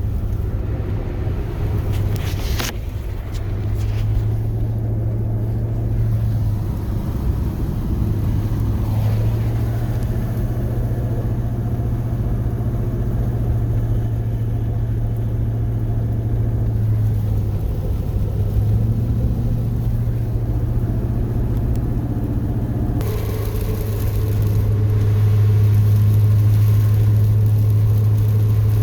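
Chevrolet pickup's 8.1-litre Vortec big-block V8 running at a steady cruise with road noise, heard from inside the cab as a steady low drone. About three-quarters of the way through, a louder hiss joins in and the overall level rises a little.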